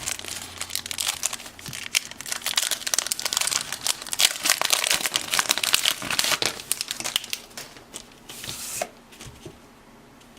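Wax-paper wrappers of 1984 Topps hockey card packs crinkling and tearing as they are opened by hand. The crinkling is dense for the first seven seconds or so, with one more short burst near the end before it dies down.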